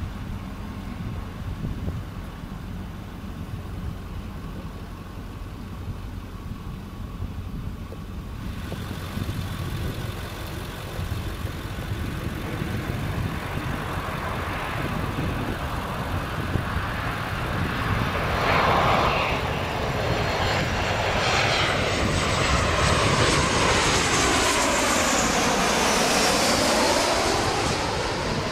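Jet airliner flying close overhead. Its engine noise builds from about a third of the way in and is loudest near the end, with a whooshing tone that sweeps down and back up as it passes.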